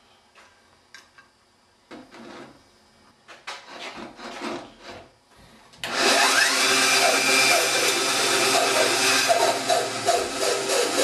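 Light clicks and knocks of handling, then about six seconds in a bandsaw starts, its motor pitch rising briefly as it spins up, and runs loud and steady while it cuts through a thin brass displacer shaft held in a wooden jig.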